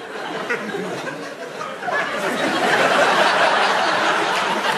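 Live comedy audience laughing, the laughter swelling and growing louder about two seconds in.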